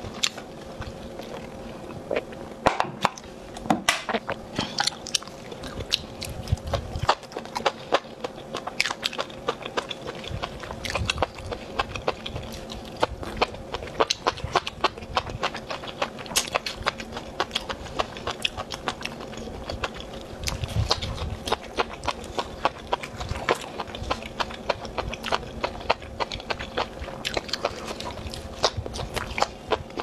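Close-miked biting and chewing of a spicy sauced meat and enoki mushroom skewer: a steady run of short clicks and smacks from the mouth, over a faint steady hum.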